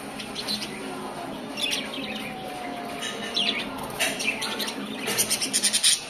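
A group of budgerigars chattering and chirping, with a quick run of loud chirps near the end.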